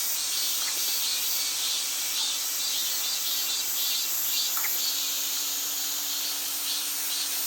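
Insects chirring: a steady high-pitched pulsing trill, about three pulses a second, over a faint steady hum.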